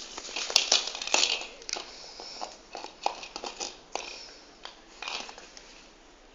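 Dog mouthing and chewing a small hollow plastic ball, giving irregular crackling, crunching clicks of the plastic. They come thick in the first few seconds and thin out near the end.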